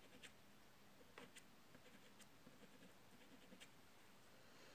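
Near silence with a few faint, scattered ticks and light scrapes of hands working soft pastel on paper and among the pastel sticks.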